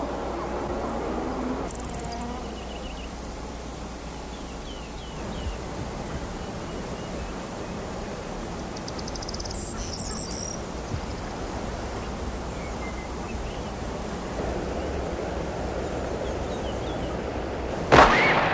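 Quiet outdoor ambience with a low steady hum and scattered bird chirps, then near the end a single loud, sharp rifle shot with a short echoing tail, a sniper firing.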